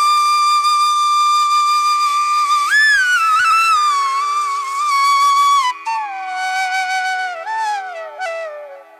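Background music: a slow solo melody on a flute-like wind instrument. It holds one long note, then bends and slides down through a falling phrase that fades near the end.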